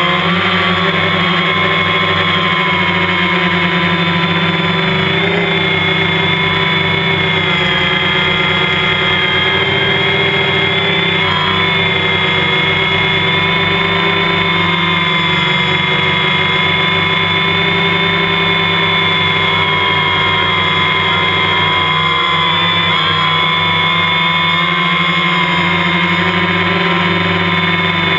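DJI Phantom quadcopter's four electric motors and propellers whining steadily in flight, heard up close from the camera mounted on the drone. The pitch shifts slightly a couple of times as it manoeuvres.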